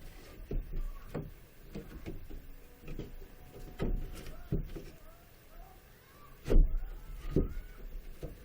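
A series of irregular knocks and thumps from objects being handled and set down, with the loudest thump about six and a half seconds in.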